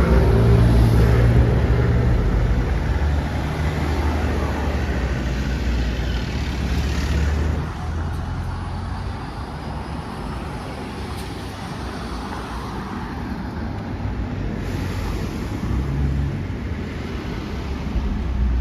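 Steady low rumble of a moving bus heard from on board: drive and road noise, easing a little partway through and picking up again near the end.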